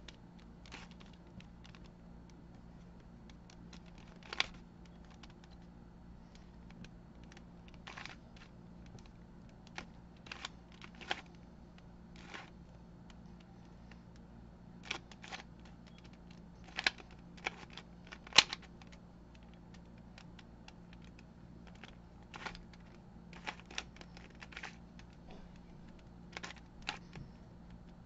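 A 2x2 mirror cube turned by hand, its layers clicking and clacking irregularly as they turn and snap into place. The sharpest clacks come a little past the middle.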